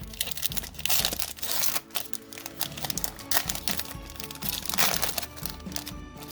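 Foil Pokémon booster pack wrapper crinkling as it is handled and torn open, in irregular rustling bursts over background music.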